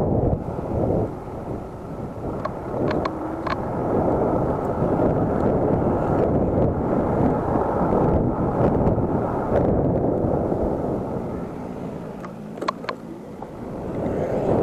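Wind buffeting the microphone of an action camera on a moving electric scooter, a rushing noise that swells and eases, with road rumble underneath. A few faint short ticks sound about three seconds in and near the end.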